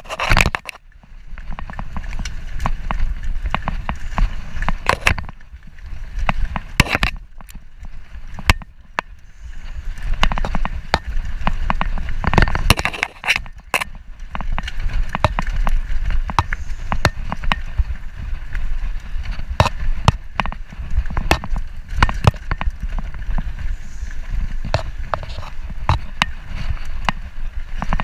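Mountain bike riding over a rocky dirt singletrack: tyres rolling over dirt and rock under a steady low rumble, with the bike rattling and giving many sharp clicks and knocks over the bumps.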